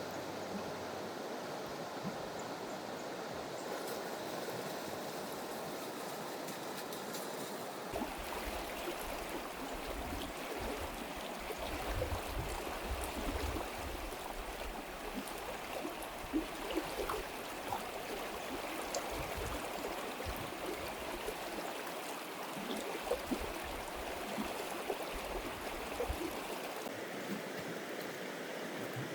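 Stream water flowing steadily, with an irregular low rumble from about a quarter of the way in until near the end.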